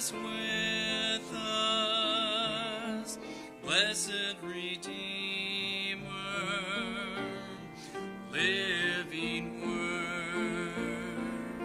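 A man singing a slow worship song in long, held notes with vibrato, in about three phrases, with upright piano accompaniment underneath.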